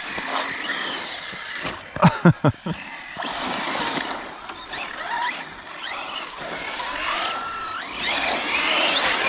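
Radio-controlled cars racing on an asphalt pumptrack, their motors whining up and down in pitch as they speed up and slow down, with tyre noise. A few sharp knocks come about two seconds in.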